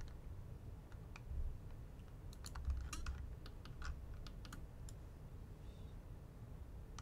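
Computer keyboard and mouse clicks, scattered and irregular, with a quick run of them around the middle, over a faint low hum.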